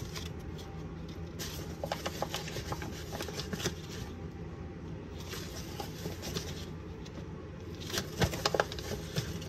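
Flour bag rustling as a 1/3-cup measure scoops bread flour out of it and tips it into a mixing bowl, in several bouts, with a few sharp knocks of the cup near the end.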